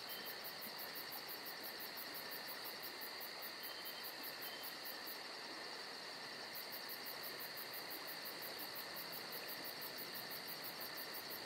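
Crickets chirping in a steady night chorus: a continuous high-pitched trill with a rapid, regular pulsing over it.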